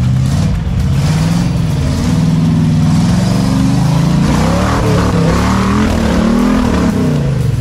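Off-road Jeep's engine revving up and down under load as it claws up a muddy bank, the pitch rising and falling several times.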